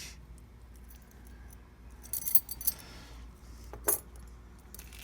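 Loose metal key blanks clinking and jangling as they are handled and sorted. There is a quick cluster of clinks about two seconds in and a single sharp click near the end.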